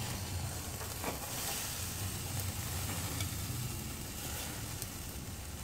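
Fish steaks sizzling on a wire grill grate over very hot charcoal: a steady hiss with a few faint crackles, over a low steady rumble.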